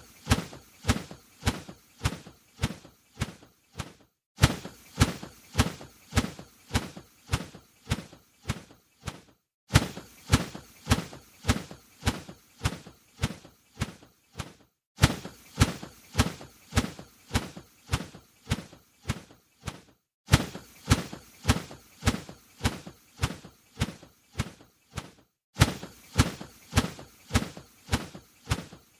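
A bird's wings flapping: a run of sharp wingbeats, about two to three a second, in stretches of about five seconds broken by short pauses.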